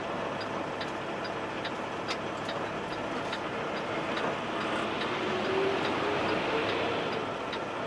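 Semi truck's turn-signal flasher ticking evenly, about two and a half clicks a second, over the steady running noise inside the truck cab.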